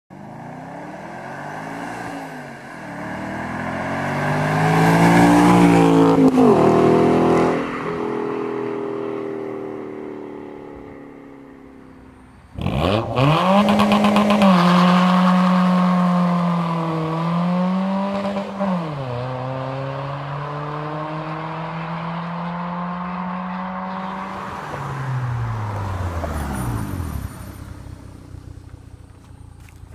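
A 2005 Audi S4's V8 exhaust as the car drives past, rising to its loudest about six seconds in and then fading away. About twelve seconds in, the sound cuts to a 2005 Mitsubishi Lancer's 1.6 four-cylinder (4G18) through a Magnaflow exhaust, revving, then running at a steady pitch, then dropping in pitch near the end.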